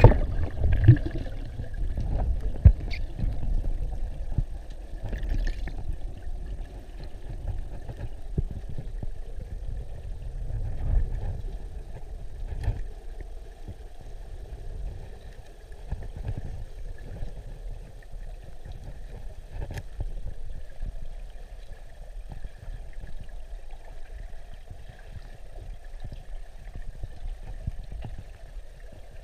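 Muffled underwater rumble and sloshing of river water around a submerged camera, with scattered dull knocks and a faint steady high tone, as a spearfisher moves under water. It is louder in the first dozen seconds and then settles lower.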